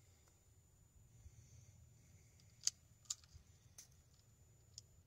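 Near silence broken by four faint, sharp clicks in the second half, from handling the Glock 19 airgun and its mounted laser light.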